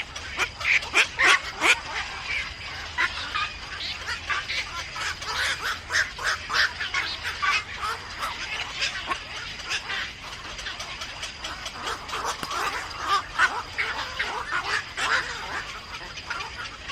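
Birds calling in a dense run of short, rapid, harsh calls, loudest in the first two seconds and again about twelve to fifteen seconds in, over a faint steady high tone.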